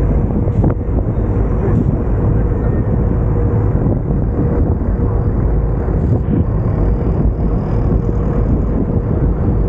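Tourist riverboat under way: the engine runs steadily with a thin steady hum, under a loud rush of wind and water.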